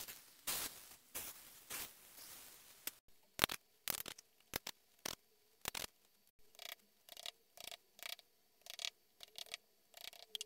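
A run of short scraping strokes and sharp taps, about one or two a second: a brass-bristled wire brush scrubbing sand off freshly cast metal letters, and a small hammer tapping metal letter patterns into moulding sand. The later taps ring faintly.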